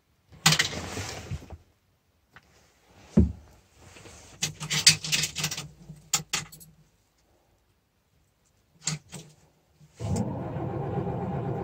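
Knocks and clatter of handling in the cab, then about ten seconds in the Åkerman H7Mc excavator's Volvo TD61ACE turbo diesel catches on a cold start and runs steadily.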